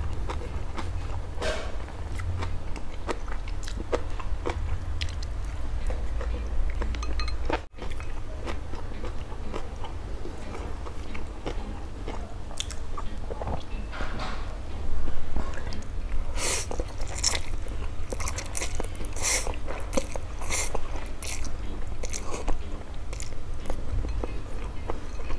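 Close-up eating sounds: a person chewing and biting mouthfuls of instant noodles and side dishes, with many short wet smacks and crunchy clicks that come thicker and louder in the second half. A steady low hum runs underneath.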